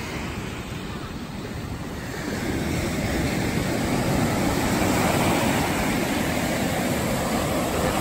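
Ocean surf breaking and washing up on a sandy beach, a steady rush that grows louder about two and a half seconds in, with a low rumble of wind on the microphone.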